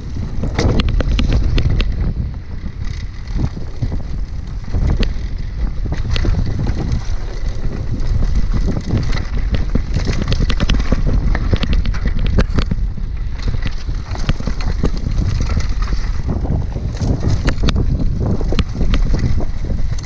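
TSW Jump mountain bike rolling fast down a dirt singletrack, its tyres on the dirt and frequent sharp knocks and rattles from the bike over bumps, under heavy wind rumble on the action camera's microphone.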